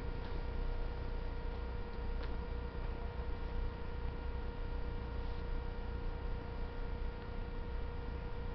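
KiHa 47 diesel railcar idling at a standstill: a steady low rumble with a constant humming tone over it, and a couple of faint ticks.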